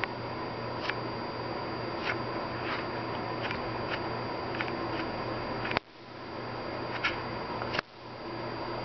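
Steady hum and hiss with a few faint ticks, and two sharp clicks about six and eight seconds in, each followed by a brief dip in level.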